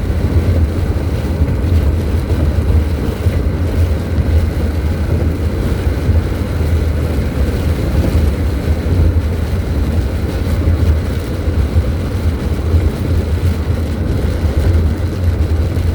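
Steady, loud low rumble of a car driving on the highway, heard from inside the cabin: road, engine and wind noise with no sharp events.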